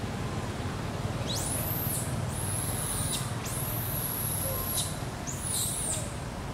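Four thin, very high-pitched animal calls in a row, each sweeping sharply up and then holding level before dropping off, the third the longest, over a steady low rumble.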